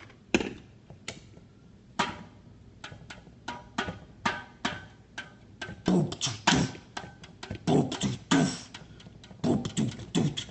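Improvised beatbox: fingers tapping and drumming an uneven rhythm on a full Dr Pepper can, getting denser and louder about halfway through, with mouth percussion joining the taps.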